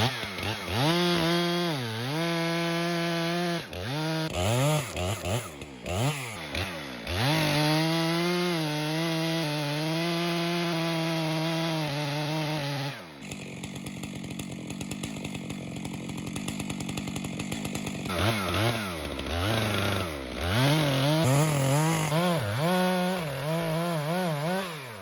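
Stihl MS 462 two-stroke chainsaw revving up and down and held at high speed for several seconds at a time. About 13 seconds in it drops to a quieter idle for some five seconds, then is revved hard again several times.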